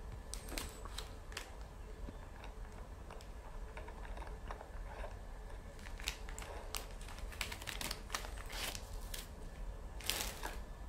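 Faint, irregular crinkling and light clicks of a plastic packet being handled in gloved hands, over a low steady hum.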